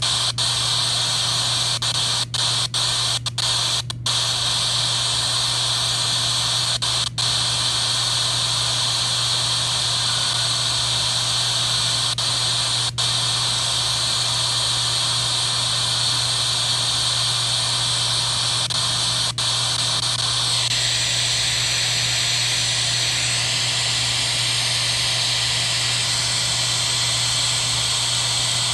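Steady radio static hiss from an RTL-SDR receiver's demodulated audio, with no station tuned in. It is cut by several very brief dropouts in the first seven seconds and a couple later, and turns thinner and higher about twenty seconds in.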